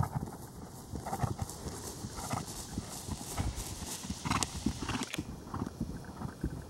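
Dull hoofbeats of a ridden Trakehner gelding on grass, going from a trot into a canter, in an uneven rhythm of soft thuds.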